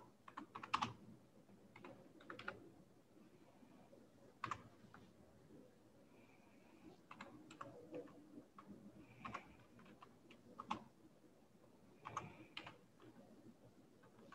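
Computer keyboard being typed on: faint, irregular key clicks, some single and some in quick clusters.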